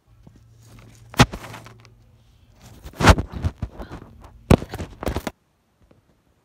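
Handling noise from a hand-held phone being moved about: several knocks and rubbing over a low hum, cutting off suddenly about five seconds in.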